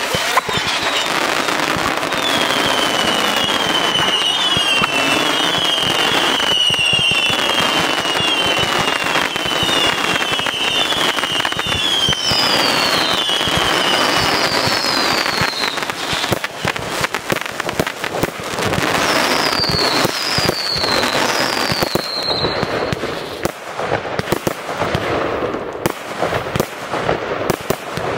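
Fireworks display: continuous crackling, with many short whistles falling in pitch through the first half, then dense sharp cracks and bangs in the second half.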